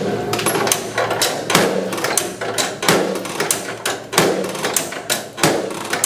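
A series of sharp knocks and clicks: a louder knock roughly every second or so, with lighter clicks between them.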